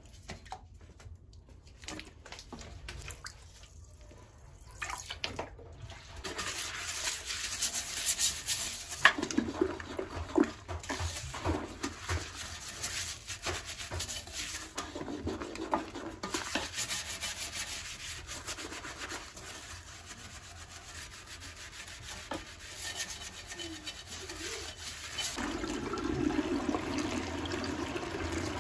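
Household cleaning with water: water running and splashing while a surface is scrubbed and rubbed, with many small clicks and scrapes. It starts quietly and sparsely, fills in after a few seconds, and the water grows louder near the end.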